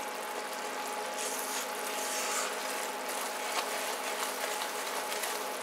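Margarine and brown sugar glaze boiling in a saucepan: a steady bubbling sizzle with fine crackling pops, the sugar fully melted.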